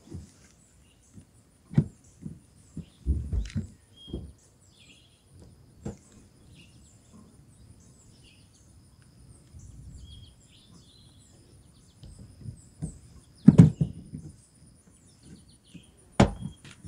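Microfiber towel wiping and rubbing on a car windshield, with scattered thumps from hand and towel against the glass, the loudest two near the end. Birds chirp in the background.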